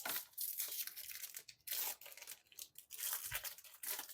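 Foil wrapper of a Pokémon TCG booster pack being torn open and crinkled, in a quick run of rips and crackles that stops just before the end.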